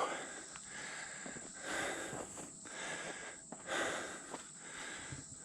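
A man breathing hard and heavily, about one breath a second, out of breath after a long fight with a large carp.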